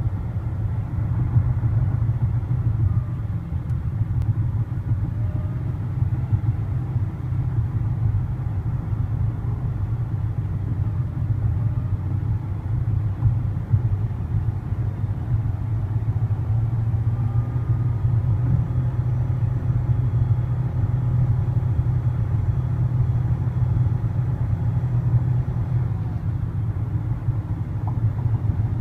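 Inside a 2012 Nissan Altima at highway speed: steady road and wind rumble with a faint high-pitched whine underneath, getting louder a little past halfway. The owner takes the whine for a transmission fault.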